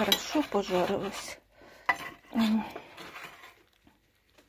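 A kitchen knife sawing through a baked blood sausage and scraping and clicking against the metal baking tray it lies in. The sound dies away in the last second.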